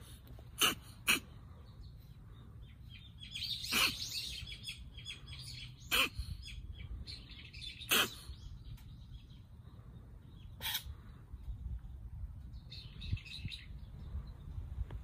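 Birds chirping outdoors: several short, sharp calls spread through, with bursts of quick high twittering about four seconds in and again near the end.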